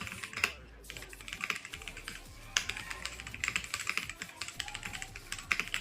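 Kreo Hive 65 mechanical keyboard being typed on: a fast, uneven run of key clicks, with a few louder strikes among them.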